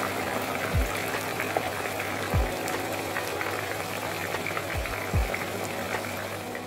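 French fries deep-frying in hot oil in a wire basket: a steady sizzling hiss with dense crackling. A few low, falling thumps come through it.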